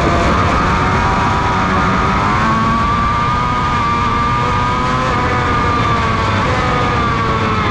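Honda CBR600RR inline-four engine running at high revs in third gear, heard onboard with wind noise. The engine note rises a little about two seconds in, holds, then eases slightly after about five seconds.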